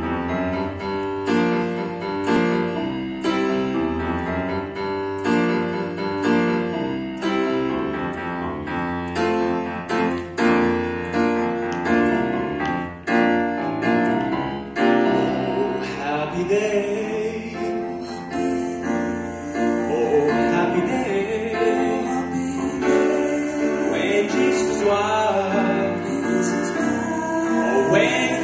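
Grand piano playing on its own, with clear separate notes; about halfway through a singing voice with vibrato comes in over the piano accompaniment.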